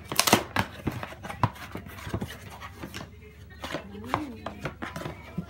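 A cardboard shipping box being opened by hand: irregular scrapes, taps and knocks of cardboard flaps, sharpest in the first half-second.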